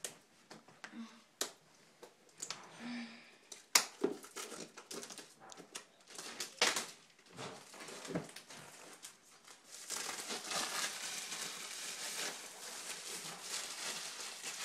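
Clear plastic shrink wrap being peeled off a laptop box: irregular crackles and snaps, then steady crinkling for the last few seconds as the wrap is crumpled in the hands.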